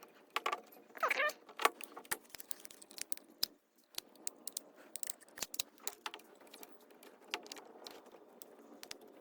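Irregular light metallic clicks and clinks of small carburetor parts being handled while the accelerator pump linkage of a Holley two-barrel carburetor is fitted back on.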